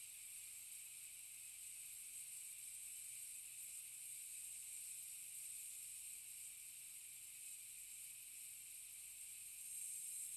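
Compressed air slowly leaking from an air tank: a steady, high-pitched hiss.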